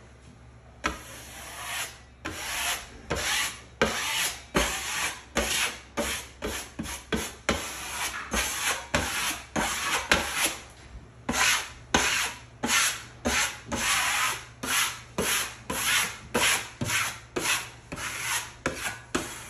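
Drywall knife scraping across setting five-minute hot mud, repeated short strokes about two a second, starting about a second in. The blade is taking the lines and ridges off a half-set first coat to level it.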